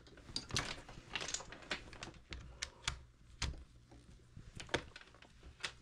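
Irregular light clicks and knocks of test leads being handled and their plugs pushed into a handheld oscilloscope and breakout box, with a few louder knocks among them.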